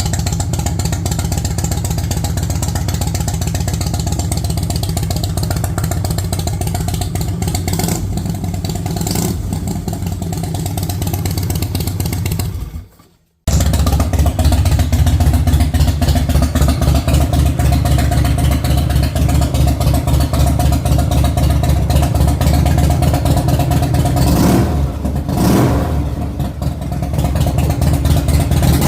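Harley-Davidson Shovelhead's air-cooled V-twin engine running with an even, rapid firing beat. The sound cuts out briefly about halfway through and resumes with the engine running again, and near the end the revs rise and fall.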